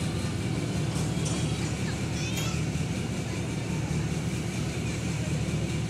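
Diesel engine of heavy construction machinery running steadily, a low continuous sound.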